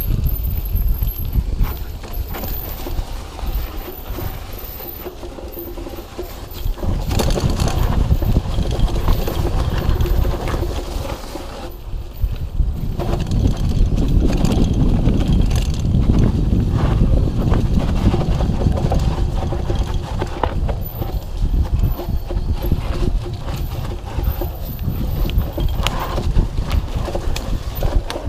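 Mountain bike riding fast down a dirt forest trail: tyres on dirt under a constant low rumble, with frequent rattles and knocks from the bike over bumps. The noise eases for a few seconds twice, then picks up again.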